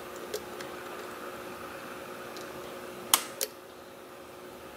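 Small sharp metallic clicks from a lock pick and tension wrench working the pins of a Defiant pin-tumbler lock core during single-pin picking, with two distinct clicks about three seconds in. A steady faint hum runs underneath.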